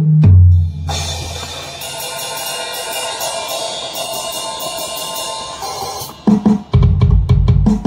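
Drum samples from FL Studio's FPC drum plugin, triggered by tapping the pads of a 25-key MIDI controller. A deep bass-drum hit at the start is followed by a cymbal ringing out for several seconds, and near the end comes a fast run of drum hits with heavy bass.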